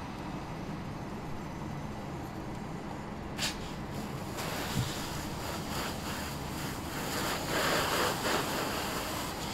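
A fully involved car fire burning with a low rumble; after a sharp crack about a third of the way in, a fire hose sprays water onto the burning car with a loud rushing hiss that swells near the end.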